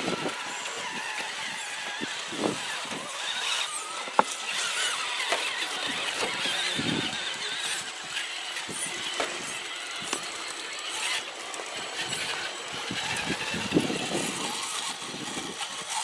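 Small electric motors and gear drives of radio-controlled scale rock crawler trucks whining as they creep over rocks, with a few sharp clicks and knocks from the trucks on the stones.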